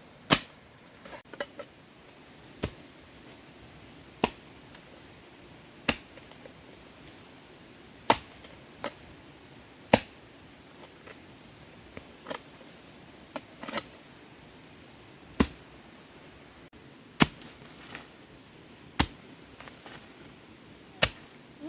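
A blade chopping into wood: about a dozen single sharp strikes, evenly paced at one every second and a half to two seconds.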